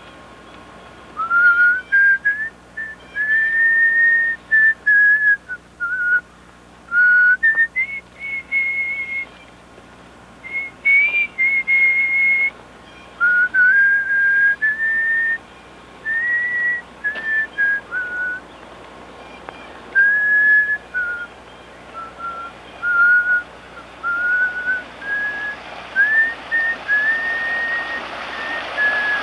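A person whistling a tune: one clear whistled line in short held notes that step up and down, phrase after phrase with brief breaks. A hiss builds up underneath near the end.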